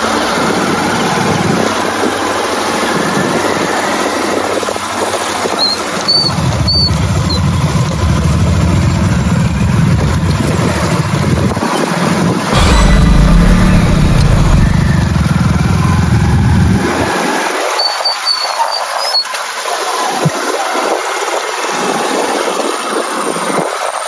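Motorcycles running along a bumpy dirt track, heard from a following bike, their engines a steady low drone under loud rushing noise. The engine sound is strongest midway and thins out over the last several seconds.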